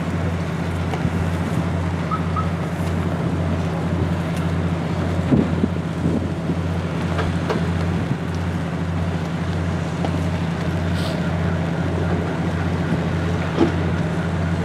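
Steady low hum of an engine running, with an even throb.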